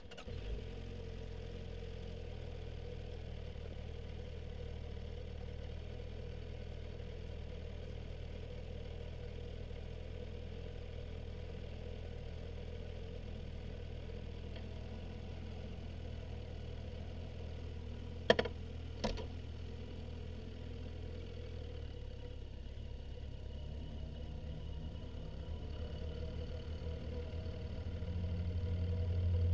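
Suzuki Bandit's inline-four motorcycle engine idling steadily, with two sharp clicks a little past halfway. In the last third the revs rise and it grows louder as the bike pulls away.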